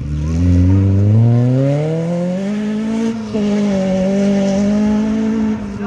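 Off-road racing buggy's engine accelerating away hard, its note rising for about three seconds, dipping briefly a little past halfway, then holding a steady higher pitch.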